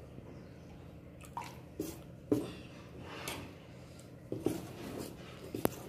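Steel ladle stirring and scooping thick mung-dal-and-rice dosa batter in a stainless-steel pot: six or seven soft, wet squishing and sloshing strokes at uneven intervals.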